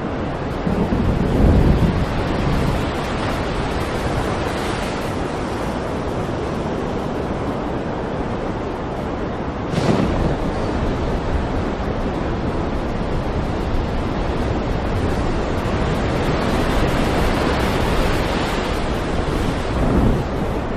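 Stormy sea ambience: a steady rush of waves and wind. There is a louder, deep surge about a second in, a sudden sharp burst about ten seconds in, and another swell near the end.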